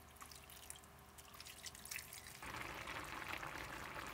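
Water pouring in a thin stream from a plastic pitcher into a glass pot of stew ingredients. About two and a half seconds in, the sound changes abruptly to the denser, slightly louder bubbling of the stew simmering.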